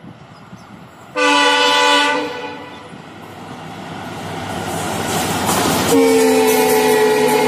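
Diesel locomotive horn sounding twice as an express train approaches: a short blast about a second in and a longer one from about six seconds in. Between the blasts the rumble of the train and its wheels on the rails builds steadily.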